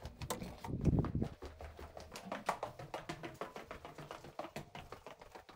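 Footsteps going down a stairwell: a quick, irregular run of hard taps and clicks, with a duller thump about a second in.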